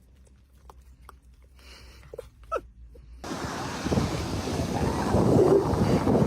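Faint clicks and a couple of short squeaks, then about three seconds in a sudden switch to loud wind buffeting the microphone over surf, growing louder toward the end.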